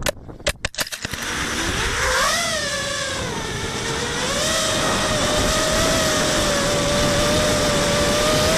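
Racing quadcopter's electric motors and propellers heard through its onboard camera: a quick run of knocks and clicks in the first second as it tumbles, then the motors spin up with a rising whine about a second and a half in, waver, and settle into a steady high whine as it flies on.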